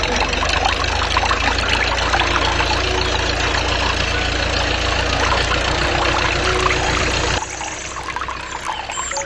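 A small engine running steadily, with dense gritty noise over it, which cuts off abruptly about seven seconds in, leaving a quieter hiss.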